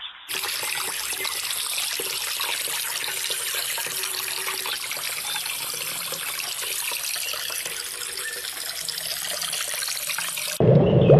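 Shallow muddy water running steadily over earth, an even rushing splash. About ten seconds in it switches abruptly to a louder, deeper rushing sound.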